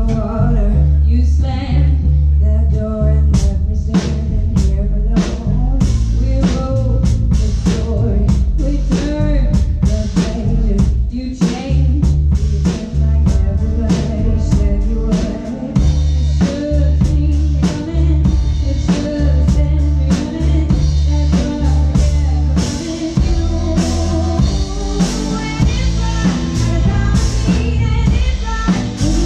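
Live band playing a song: a woman singing over electric guitar, upright bass and drum kit, with a steady drum beat.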